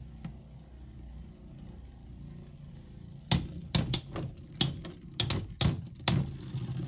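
Two Beyblade X tops spinning in a plastic stadium, first a low steady whir, then from about halfway through a quick run of sharp plastic-and-metal clacks as they strike each other and the stadium wall.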